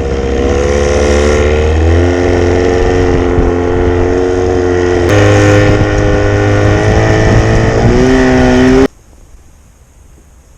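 Evinrude outboard motor on a john boat running under way, its pitch stepping up and down several times as the throttle changes. It stops abruptly about nine seconds in.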